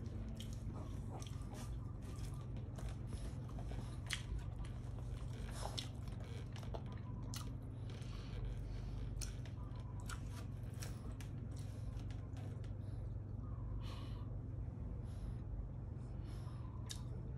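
Soft, irregular chewing and clicking sounds over a steady low hum.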